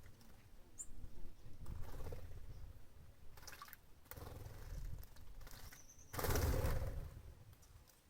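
Small birds bathing, splashing water with their wings in short bursts, the loudest about six seconds in. A brief high chirp comes about a second in, and a short high call just before the loudest splash.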